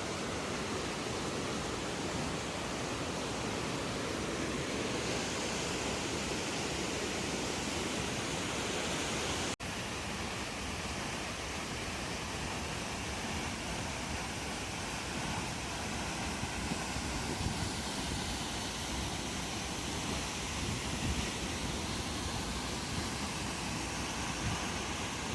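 Steady rush of falling water from a waterfall, an even noise with no change throughout, broken once by a momentary dropout about ten seconds in.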